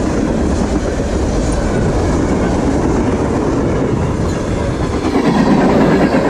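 A freight train's tank cars rolling past at speed, a steady noise of steel wheels on rail that grows a little louder about five seconds in.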